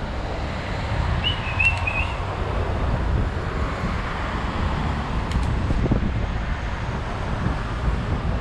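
Wind rumbling steadily on the microphone of a camera riding along on a bicycle. A brief high chirp comes about a second in.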